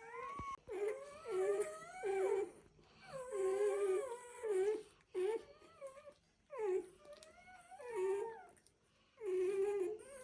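A dog whining in a run of about ten wavering, high whimpers, some short and some drawn out, with brief pauses between them.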